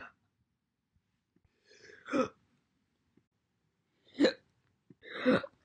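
A person hiccuping: a faint hiccup right at the start, then three sharp single hiccups about a second or two apart, the last a little longer.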